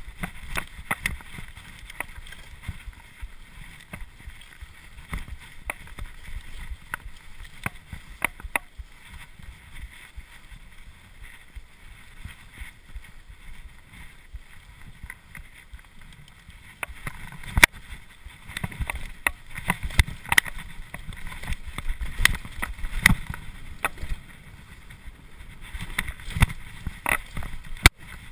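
Cube LTD Pro hardtail mountain bike ridden fast over dirt singletrack: tyres rumbling on the ground, with frequent sharp clicks and rattles from the bike over rough ground. The rattling gets busier and louder from a little past halfway.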